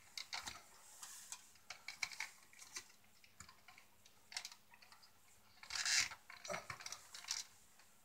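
Small clicks and rustling of stiff electrical wires and wire connectors being handled and pushed up into a ceiling electrical box, with a louder scrape about six seconds in.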